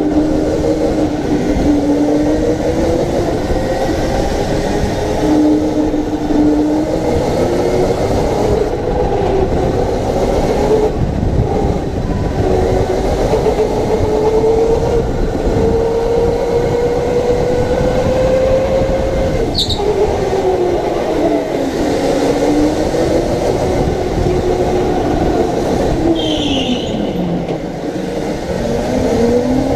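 Electric go-kart motor whining, its pitch rising and falling as the kart speeds up on straights and slows for corners, over a steady rumble of hard tyres on a concrete floor. Two brief high squeaks cut in, about two-thirds of the way through and near the end.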